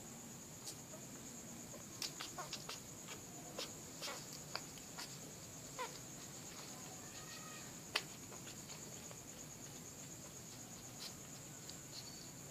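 Newborn puppies nursing at their mother: scattered soft suckling clicks and tiny squeaks, bunched a couple of seconds in, with one sharper click about eight seconds in, over a steady high-pitched buzz.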